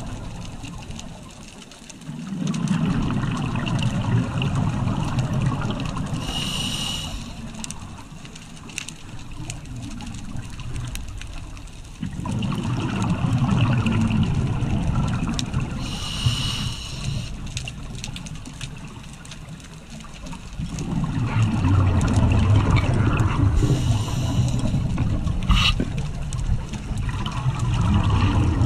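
Scuba diver breathing through a regulator underwater: three slow breaths, each a long stretch of bubbling exhaust bubbles followed by a short hiss as the regulator delivers air on the inhale.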